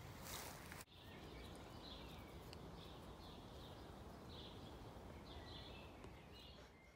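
Faint outdoor ambience with small birds chirping on and off. A short rustling rush fills the first second and cuts off abruptly.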